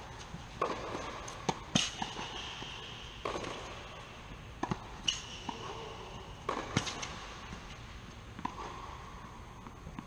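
Tennis rally on a hard court: a ball struck by rackets and bouncing, with sharp hits every second or so that echo, and short squeaks after a few of them.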